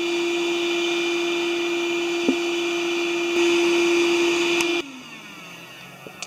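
Shop vac running as the air blower for a charcoal forge: a steady motor whine with rushing air, a little louder past halfway. It is switched off about five seconds in, and its motor winds down with a falling pitch.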